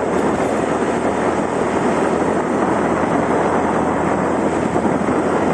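Steady rush of wind over the microphone with a motor scooter running underneath, heard while riding along.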